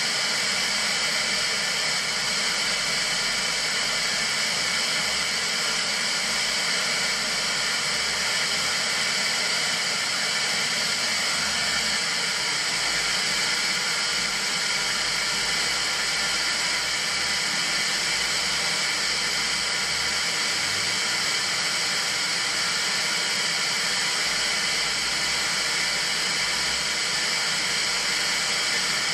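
1977 Kriesler 660/55 analogue television giving out a steady white-noise hiss of static from its speakers. The set has no signal because the analogue Channel 7 transmission has been switched off.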